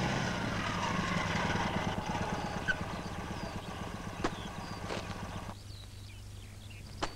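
Sidecar motorcycle engine running as the bike pulls up and slows to a stop. The engine noise fades, then cuts off abruptly about five and a half seconds in, leaving a low hum, with a few light knocks.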